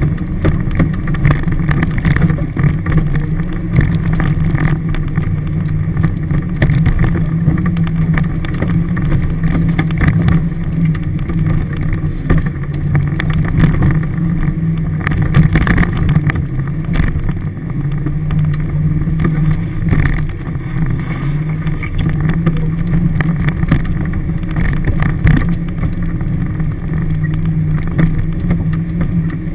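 Toyota Hilux engine running under load, heard from inside the cabin, its drone rising and falling with the throttle as it drives a rough four-wheel-drive track. Frequent knocks and rattles from the body and cabin over the bumps.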